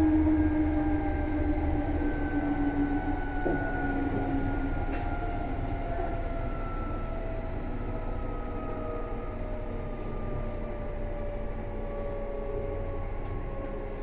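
Seibu 2000-series electric train running, its motor and gear whine in several tones falling steadily in pitch as the train slows, over a steady running rumble with a few faint clicks.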